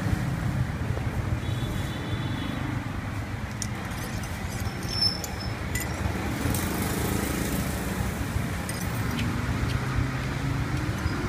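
Steady street traffic hum from passing motorbikes and cars, with a few light clicks.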